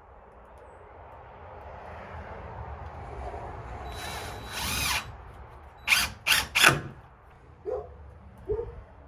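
Power drill driving screws into a door's metal security strike plate: a long run that builds over several seconds, then three short, loud bursts about six seconds in, and a few smaller short sounds near the end.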